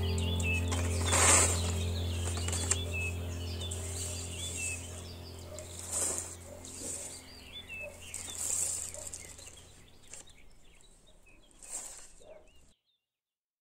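A backing track of chirping birdsong over a steady low drone, fading out gradually to silence near the end. About four brief dry rustles stand out, the loudest about a second in.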